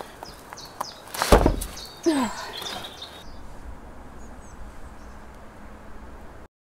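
A heavy thump about a second in, then a short creak falling in pitch, with faint high chirps in the background; the sound cuts off near the end.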